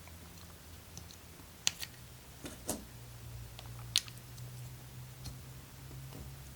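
A 3-volt battery being pressed into a car key fob's plastic housing: a handful of short, sharp plastic clicks and taps over a faint steady low hum.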